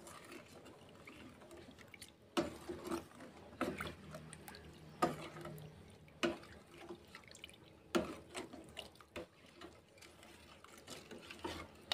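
Metal ladle stirring a thin coconut-milk mixture in a stainless steel pot. The liquid swishes softly, and the ladle knocks against the pot every second or two.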